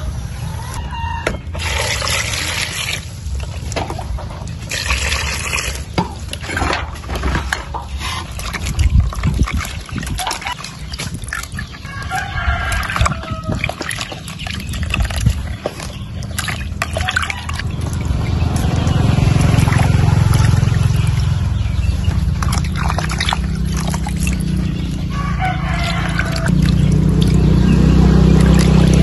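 Hands squelching and sloshing mushrooms about in a pot of liquid, with small clicks and taps of handling. A rooster crows now and then in the background, and a low rumble builds up in the second half and becomes the loudest sound.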